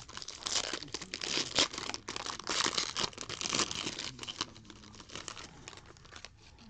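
Foil wrapper of a trading card pack being torn open and crinkled by hand. The crackling is loudest for the first four seconds or so, then thins out.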